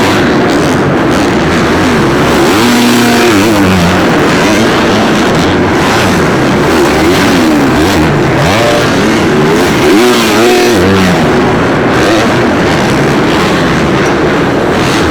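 Several supercross dirt bikes revving hard and running through the gears on the track, their engine notes rising and falling over one another. The revving is strongest twice, about a quarter of the way in and again past the middle.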